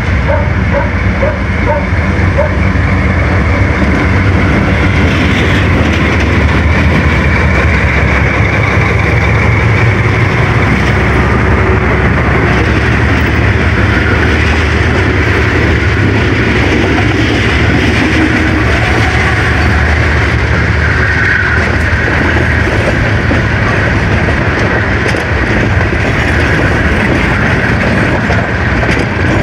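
Diesel freight locomotives passing close by with a steady, loud engine rumble, followed by a string of empty freight wagons rolling past on the rails.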